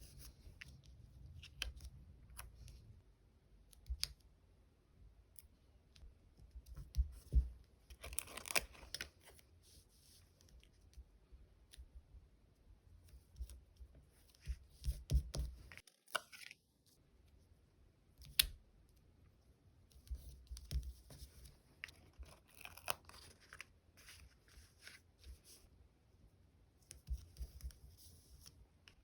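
Diary-decorating paper sounds: stickers and paper being peeled, cut and handled at a desk. The sounds come in short separate rustling bursts with soft clicks and taps between them.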